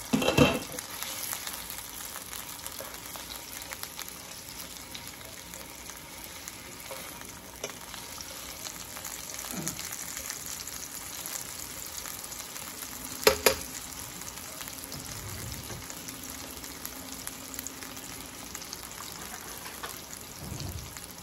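Skinless chicken longganisa sausages frying in oil in a nonstick pan, a steady sizzle as they are turned over with forks to brown their sides. There is a clatter about half a second in and one sharp click about thirteen seconds in.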